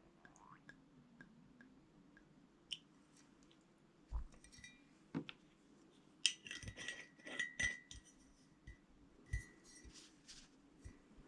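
Small clinks and taps of a sake bottle and drinking cup being handled and set down, a few of them ringing briefly, with a cluster of clinks a little past the middle.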